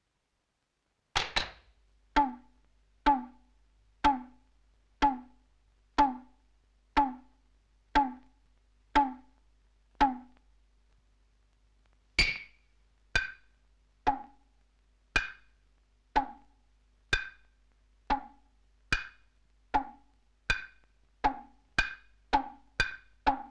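Percussion soundtrack of single dry knocks with a clear pitch, about one a second. After a short gap a higher-pitched knock joins and alternates with the lower one, and the beat speeds up to about two a second near the end.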